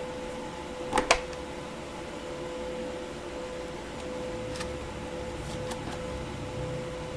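Steady machine hum from a running TIG welder, broken by two sharp clicks close together about a second in and a few fainter ticks later, as a stainless steel joint is being tacked.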